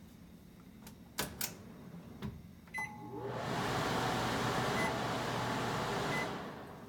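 Clicks and a short beep from a kitchen stove's controls, then a steady rushing noise with a low hum for about three and a half seconds as the stove is switched on.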